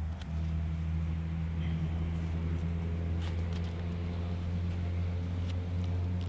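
Electric groundbait mixer, a twister paddle, running steadily with a low motor hum while it stirs groundbait, with a few light clicks on top.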